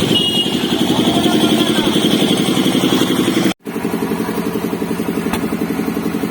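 A small engine running steadily with an even, fast pulsing beat, broken by a split-second dropout about three and a half seconds in.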